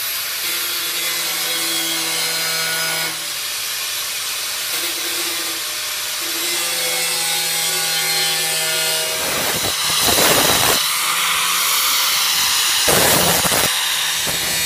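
Handheld electric angle grinder cutting into the thin steel shell of an old car muffler: a continuous motor whine with the wheel grinding through the metal, loudest in two stretches about ten and thirteen seconds in.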